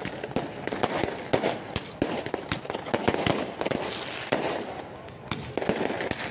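Fireworks and firecrackers going off in quick, irregular succession: many sharp bangs and pops, one close on another.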